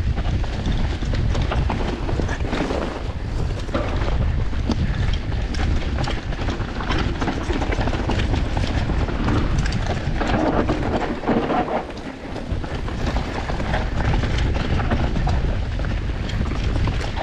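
Mountain bike descending a rough enduro trail: wind buffeting the microphone over tyres rolling on rock and dirt, with the bike's chain and frame rattling in many quick clicks and knocks.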